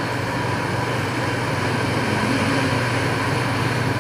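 A long, slow breath out, emptying the lungs in a pranayama (pranava prana) breathing exercise, heard as a steady breathy hiss that swells slightly, over a constant low hum.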